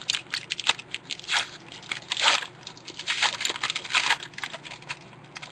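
Foil trading-card pack wrapper being torn open and crumpled in the hands: a run of irregular crinkles, several of them loud.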